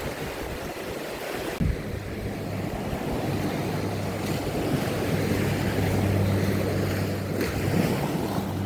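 Ocean surf washing on the shore, with wind buffeting the microphone. A short knock comes about one and a half seconds in, after which a steady low drone sounds under the surf.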